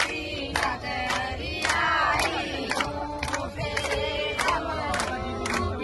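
A crowd singing a festive devotional song together, with hand claps keeping time about twice a second.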